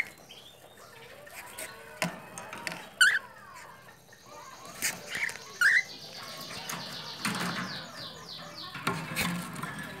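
Cockatiel calling in loud, short upward-sweeping chirps, three of them about three seconds apart, with knocks and rustling as the nest box is handled.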